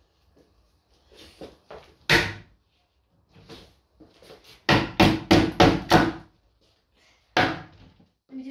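Heavy blows smashing up a kitchen: one hard strike about two seconds in, a rapid run of about six strikes around the middle, and one more near the end, with lighter knocks in between.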